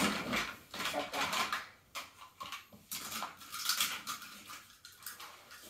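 Toy cars clattering and knocking against each other as a hand rummages through a bin full of them: irregular clicks and rattles.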